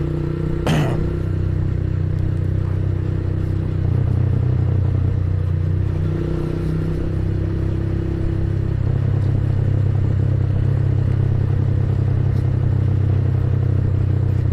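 Motorcycle engine running at a steady low speed, with road and wind noise from riding. The engine grows a little louder about four seconds in. A brief sharp sound comes about a second in.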